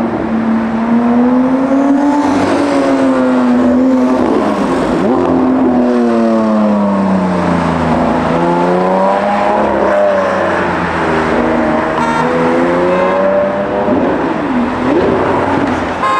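Lamborghini Aventador SVJ's V12 engine revving and accelerating, its pitch rising and falling several times as it pulls away through the gears.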